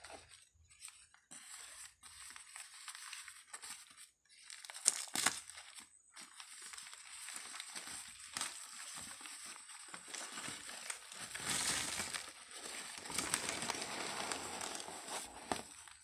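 Crumpled newspaper packing rustling and crinkling as hands lift it out of a cardboard box, with sharp loud crackles about five seconds in and a louder, denser stretch of crinkling near the end.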